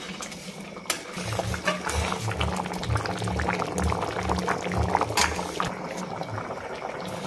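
Thick vegetable daliya khichuri boiling hard in an aluminium kadai, bubbling and popping. From about a second in, low irregular blups come from the thick porridge bubbles bursting.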